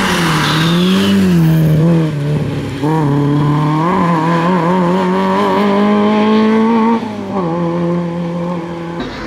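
Peugeot 205 rally car's engine at high revs on a rally stage. The engine note drops sharply about three seconds in, climbs steadily for several seconds, then drops again about seven seconds in as the revs fall.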